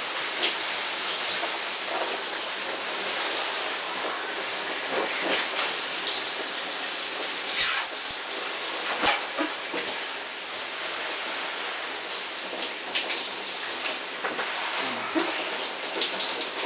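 Shower spray running, a steady hiss of falling water, with two sharp knocks or splashes about halfway through.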